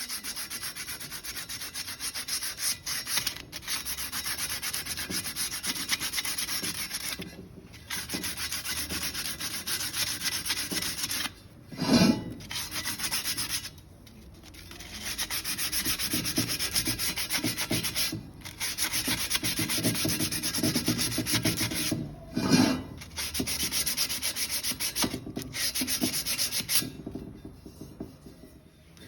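Sanding cured Bondo body filler on the lip of a wheel rim: a steady abrasive rasp in long stretches with short pauses. It is broken twice, about ten seconds apart, by a brief louder bump.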